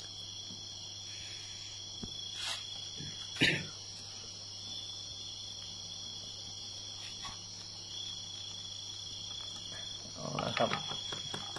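Insects chirping in a steady high-pitched chorus, with two short sharp knocks about two and a half and three and a half seconds in, the second the louder.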